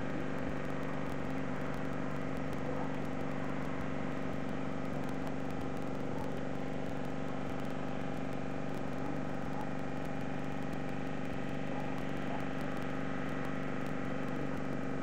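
A steady mechanical drone of several held low tones, even in level, like a motor running.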